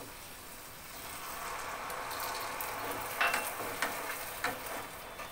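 Water poured into a hot pan of grapes and spices, setting off a steady hiss and sizzle from about a second in. A wooden spatula stirs the mix and knocks against the pan a few times near the middle.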